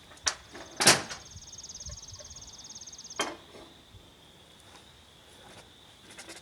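A few knocks and clatters of hand tools being lifted out of a wood chipper's hopper, the loudest about a second in and another just after three seconds.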